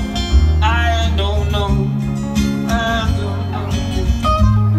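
Two acoustic guitars playing a slow ballad together: sustained strummed chords under a picked lead line.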